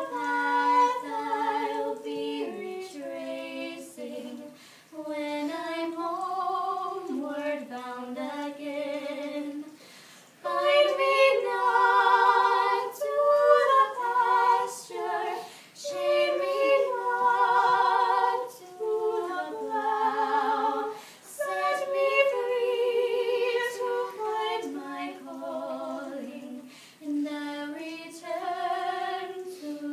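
Two young women singing a slow song together, unaccompanied, with held notes and vibrato; the voices grow louder through the middle of the passage.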